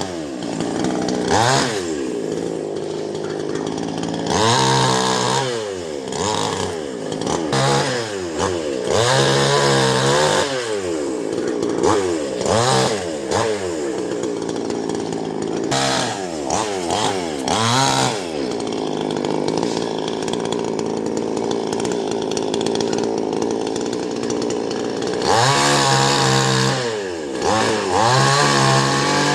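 Chainsaw cutting a tree, its engine revving up and falling back again and again, settling to a steadier speed for several seconds after the middle before revving up and down again near the end.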